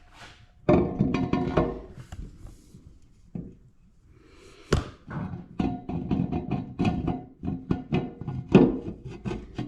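Metal parts of a bench-grinder pedestal stand knocking and clanking together, the steel post against the cast top plate and base, with a ringing after the louder knocks. The knocks come irregularly, with a quieter stretch in the middle.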